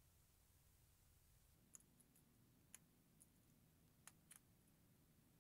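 Near silence broken by about five faint, short clicks as a small relay circuit board and its wires are picked up and handled.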